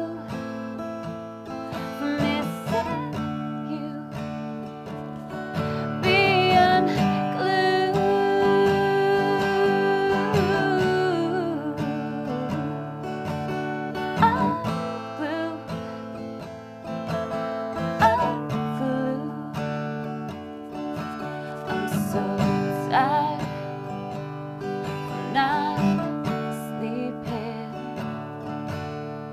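A woman singing to her own strummed acoustic guitar, with one long held sung note a few seconds in.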